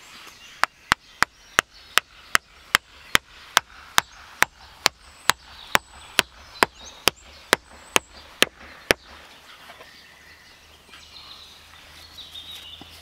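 Hammer driving a wooden stake into the ground: about twenty sharp, evenly paced blows, a little over two a second, that stop about nine seconds in.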